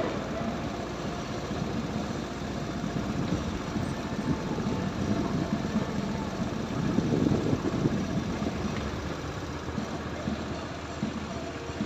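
Motorcycle engine running, a steady low rumble that swells louder about seven seconds in.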